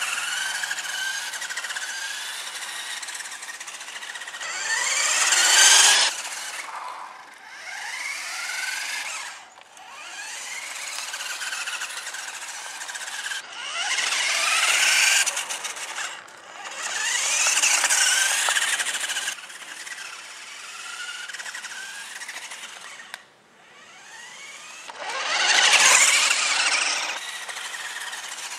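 Battery-powered remote control toy truck's small electric motor and gearbox whining in repeated runs of a few seconds. The pitch rises each time it speeds up and drops away between runs.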